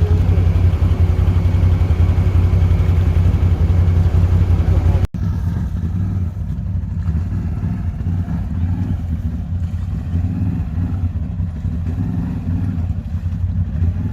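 ATV engine running steadily with a deep, even note. About five seconds in the sound cuts off abruptly and switches to a quieter, rougher engine sound.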